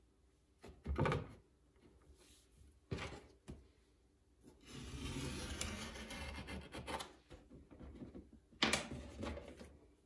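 Hands handling a mug template and objects on a work table: a few sharp knocks, and in the middle about three seconds of rubbing and sliding.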